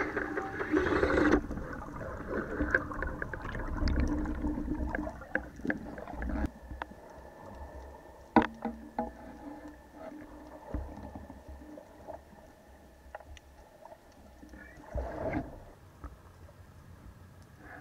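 Underwater water noise picked up by a camera on a speargun, louder for the first second or so, with scattered sharp clicks and knocks from handling the gun. The sharpest click comes about 8 seconds in, and there is a brief louder rush of water about 15 seconds in.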